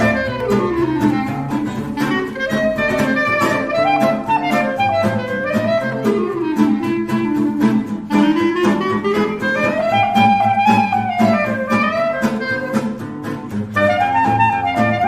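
Instrumental background music with a melody that winds up and down over a steady beat.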